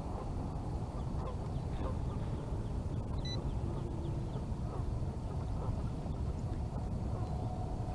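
Steady low outdoor rumble, with a few faint short calls of waterfowl, ducks or geese, about three seconds in and again near the end.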